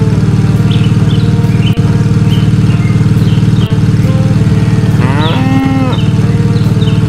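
A steady engine drone runs throughout, with short bird chirps over it. About five seconds in, a cow moos once, for about a second.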